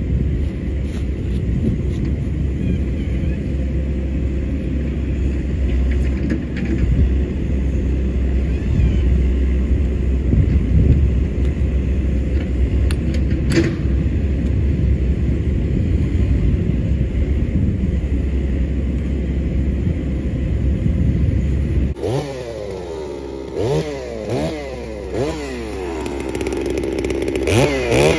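A steady low rumble for most of the stretch. Then, about three-quarters of the way through, a FarmMac F660 chainsaw, a large two-stroke clone of the Stihl 660, is heard running and revved up and down several times as it is set to the log.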